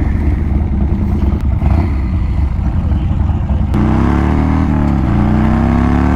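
Harley-Davidson V-twin motorcycle engine idling with a low rumble, then about four seconds in revving hard as the bike pulls away. Its pitch climbs, drops at a gear change about a second later, and climbs again.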